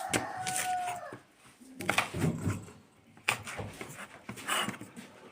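A drawn-out animal call held on one pitch, easing down and ending about a second in, followed by a few sharp knocks and clatters.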